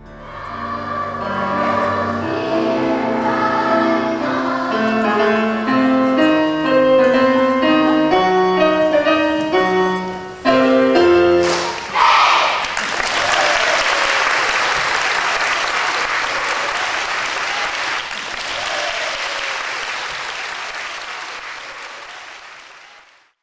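A choir singing for about twelve seconds, with a short break near the end before a final chord. A crowd then starts clapping and cheering, and the applause fades out near the end.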